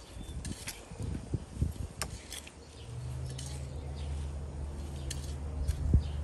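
Gloved hands digging and scraping in loose, mulched garden soil, with small scratches and clicks. From about three seconds in, a steady low hum joins underneath.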